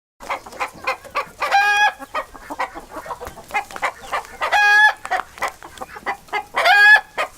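A hen clucking in quick short notes, broken three times by a longer squawking call.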